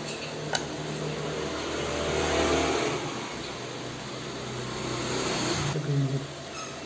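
Background road-traffic noise: a rushing vehicle sound that swells and fades twice, then drops off suddenly near the end.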